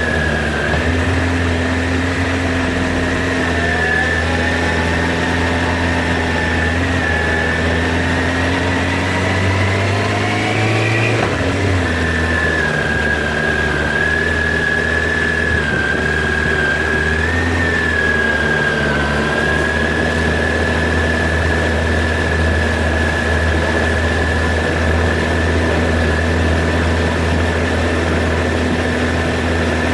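Motorcycle engine running at low town speed, a steady hum whose pitch climbs gently for about ten seconds, drops abruptly about eleven seconds in, and then holds steady.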